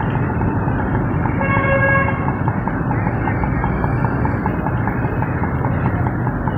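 A vehicle horn honks once, briefly, about a second and a half in, over a steady rushing background noise.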